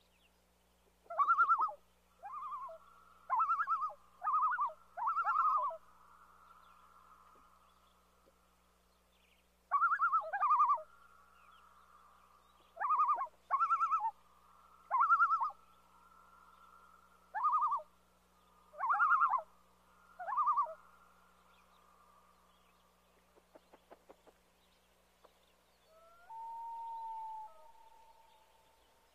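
Common loons calling across water: two bouts of short, loud, quavering tremolo calls, followed near the end by one longer steady note.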